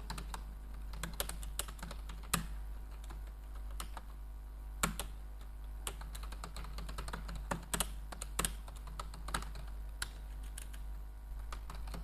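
Typing on a computer keyboard: a quick, irregular run of key clicks, some strokes sharper and louder than others, over a steady low hum.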